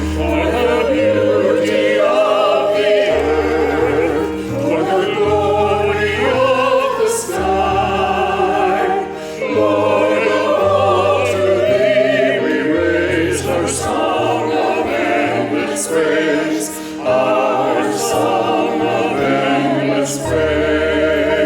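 A sacred song sung with vibrato in the voices, over sustained low bass notes that change every couple of seconds.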